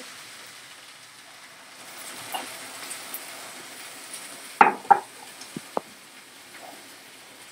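Milk sizzling quietly in a hot frying pan of sautéed broccoli, leek and onion coated in flour: the start of a béchamel. A wooden spoon stirs it and knocks against the pan a few times about halfway through, two sharp knocks close together being the loudest.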